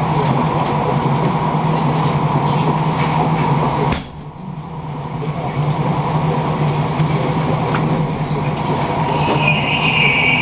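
Passenger train running, heard from inside the carriage: a steady rumble with a low hum. The noise drops sharply about four seconds in and builds back over a couple of seconds. A high-pitched wheel squeal comes in near the end.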